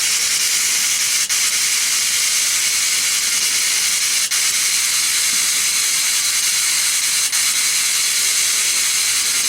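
Steady high-pitched hiss of static, with a faint click about every three seconds.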